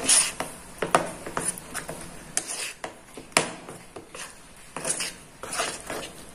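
Metal spoon stirring thick flour-and-water batter in a ceramic bowl: irregular scrapes and clinks of the spoon against the bowl, with a few sharper knocks.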